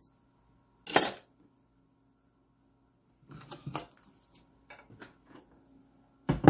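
Sharp knock of a kitchen knife on a plastic cutting board about a second in, then light scraping and tapping as diced cooked chicken is pushed together on the board, and louder knocks near the end as the board is picked up.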